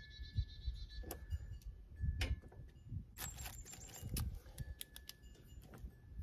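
Clear plastic bag crinkling and rustling in bursts as a hand reaches in among seed-starting plugs; the longest rustle comes about three seconds in. A bird trills briefly near the beginning.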